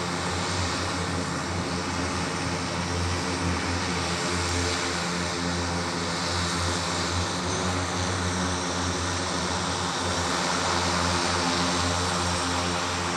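The Hexa electric vertical-takeoff multirotor's eighteen motors and propellers running steadily in a hover: a rushing propeller hum over several steady low tones, growing slightly louder near the end.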